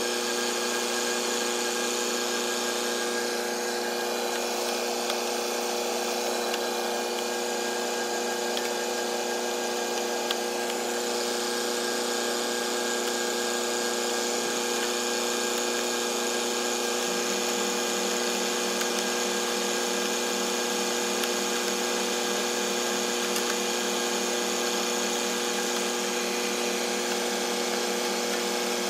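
Tractor engine running at a steady speed with the steady hum and whine of the hydraulically driven hose winder turning its reel to reel in drip irrigation hose.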